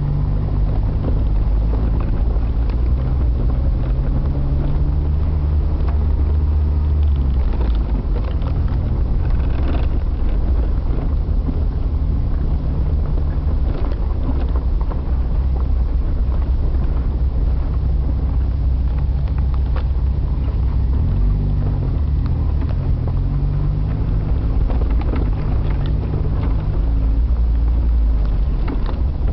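Jeep engine running at low trail speed, heard from inside the cab, its note shifting a few times as the throttle changes, with scattered knocks and rattles from driving over the rough dirt track.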